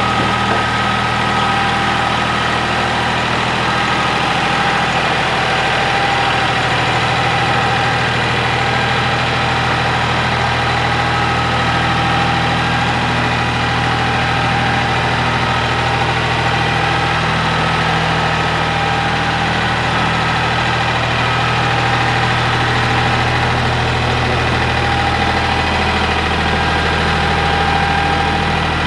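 Ford 1710 compact tractor's three-cylinder diesel engine running steadily.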